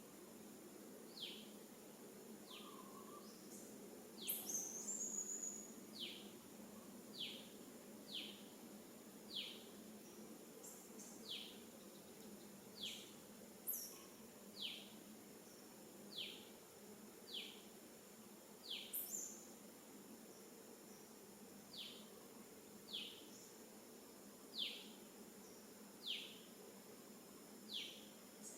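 Faint, short, high chirps, each falling in pitch, repeated roughly once a second, with a few higher squeaks among them, over a steady background hiss.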